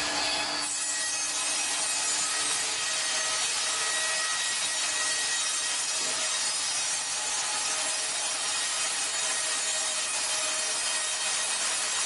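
Wimmer BN 110 S band sawmill cutting lengthwise through a log: a steady hiss of the band blade in the wood, with faint steady whining tones from the machine.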